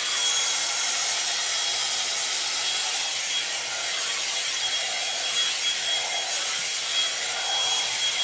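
Hot air brush (one-step hair dryer and volumizer) running steadily, its fan blowing with a thin high whine, as it is worked through hair for volume.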